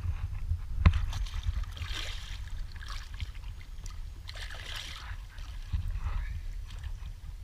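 Water splashing and sloshing against a boat's side as a hooked redfish thrashes at the surface, with two splashes a few seconds apart over a steady low rumble. A sharp knock comes about a second in.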